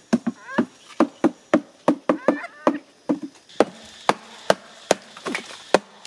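Hatchet chopping into a standing tree trunk, a quick steady run of sharp wooden strikes, about three a second.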